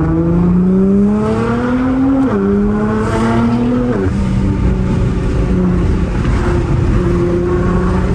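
Nissan GT-R's twin-turbo engine accelerating hard on low boost. Its pitch climbs, drops sharply at upshifts about two and four seconds in, then settles into steady running.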